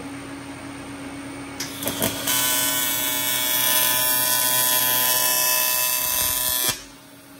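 TIG welding arc on an intercooler tube: a few brief crackles as the arc strikes about two seconds in, then a loud, steady buzz for about four and a half seconds that cuts off suddenly as the arc is stopped. A low steady hum runs underneath.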